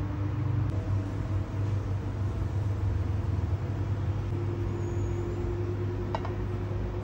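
Steady low hum with a faint held tone above it that changes pitch twice, and a light tap about six seconds in.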